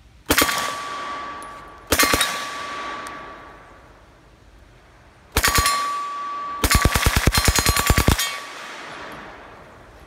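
Submachine gun firing on full auto in four bursts. The last burst is the longest, a rapid string of about a second and a half. After each burst a steady ringing tone fades away, the sound of hit steel targets.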